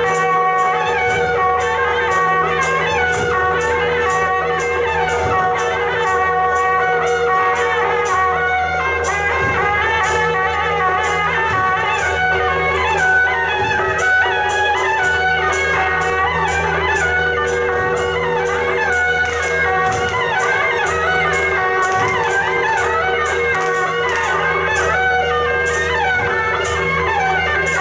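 Traditional Taiwanese temple procession music: reedy wind instruments play a wandering melody over held tones, with a steady beat of sharp percussion strikes.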